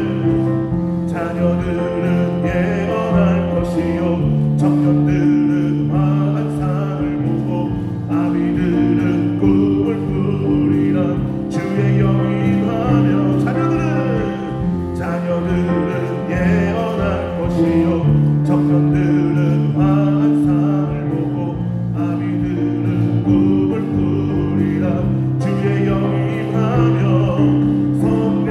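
Church worship band playing a gospel praise song: electric bass guitar, keyboard and drums under singing voices, with the chords changing every couple of seconds.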